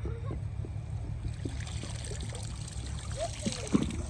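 Water trickling and dripping off a cast net as it is hauled up out of the water, growing from about a second and a half in.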